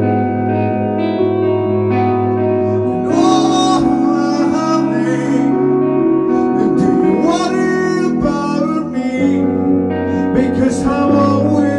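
Live rock band playing loud, guitar-led music: sustained electric guitar chords over a steady bass. About three seconds in the sound thickens and brightens as the full band comes in harder.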